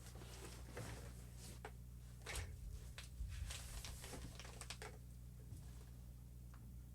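Guitar amplifier idling with a steady low hum, with scattered faint clicks and ticks over it.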